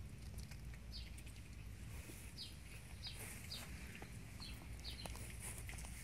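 A small bird chirping in the background, about six short, high, falling chirps, over faint scattered clicks of a cat chewing the bird it caught. A steady low rumble runs underneath.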